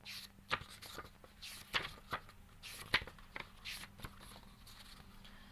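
Hardcover books being handled and their paper pages turned: a run of crisp paper rustles and small knocks that eases off after about four seconds.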